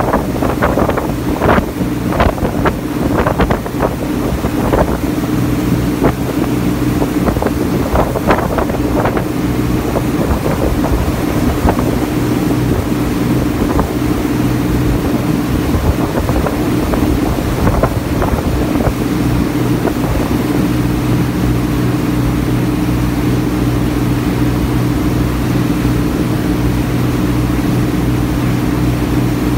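Small passenger ferry's engine running steadily at cruising speed, a constant low hum. Over roughly the first ten seconds water splashes and slaps against the hull in quick irregular strokes, with wind buffeting the microphone.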